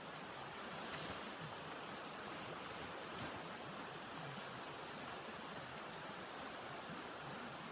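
Steady rushing wind of a snowstorm, an even hiss with no distinct events.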